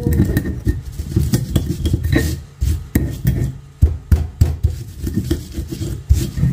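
Stone pestle grinding and crushing garlic, peppercorns and candlenuts in a stone mortar (Indonesian cobek and ulekan): irregular stone-on-stone scraping with quick clattering knocks, several a second.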